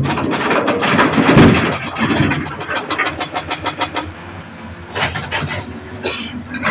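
Heavy diesel machinery running with a fast, even clatter of about six or seven knocks a second for the first four seconds, then a steadier, quieter engine sound with a couple of short rushes near the end.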